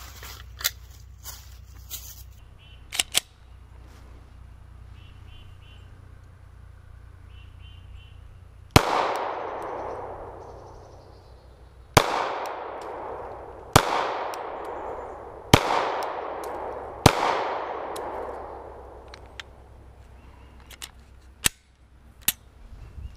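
PSA Dagger Compact 9mm pistol fired five times in slow, aimed shots, starting about nine seconds in and spaced roughly one and a half to three seconds apart, each shot trailing off in a long echo. A few lighter clicks and knocks come before and after the shots.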